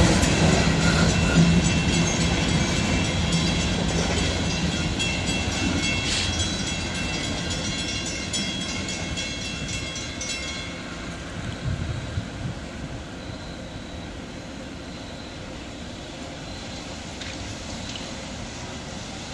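Slow freight train moving away down the track, its wheels rumbling on the rails and fading steadily. Thin high squealing tones from the wheels stop about ten seconds in, leaving a faint distant rumble.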